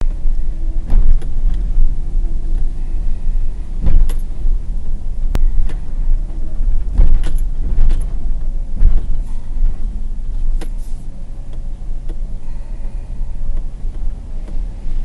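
Inside a car driving slowly over a muddy, rutted dirt road: a loud low rumble of the car and tyres on the rough road, broken every second or two by sharp knocks and thumps from the car jolting through ruts and puddles.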